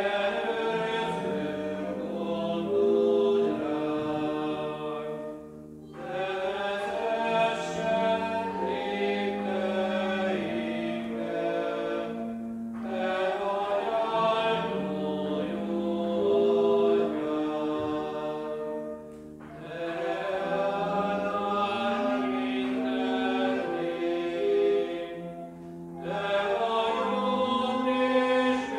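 Church congregation singing a hymn, line by line, with a short breath between lines about every six to seven seconds.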